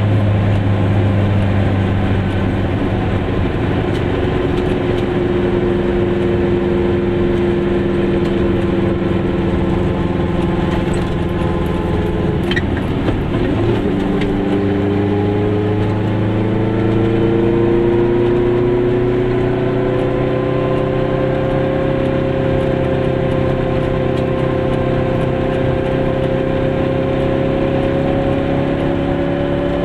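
Goggomobil's small air-cooled two-stroke twin-cylinder engine running while driving, heard from inside the car. About halfway through the engine note breaks off briefly as in a gear change, then rises steadily as the car picks up speed.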